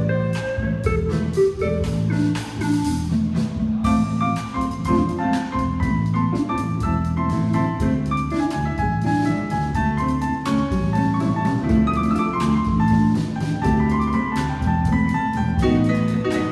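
Latin jazz band playing live: a melody line of held notes moving over bass, with drums keeping a busy beat.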